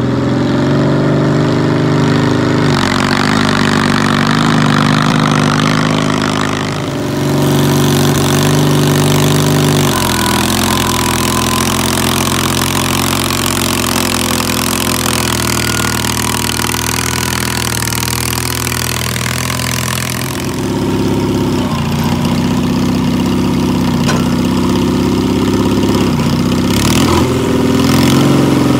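Allis-Chalmers garden pulling tractor's engine running hard through open stacks while towing a weighted pallet of concrete blocks, its speed dropping and rising again a couple of times.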